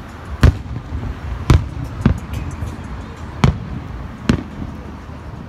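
Aerial firework shells bursting overhead: four sharp booms, the loudest two in the first second and a half, with a few fainter crackles between them.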